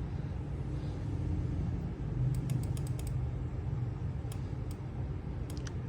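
Several short runs of computer keyboard typing, quick sharp key clicks, over a steady low hum.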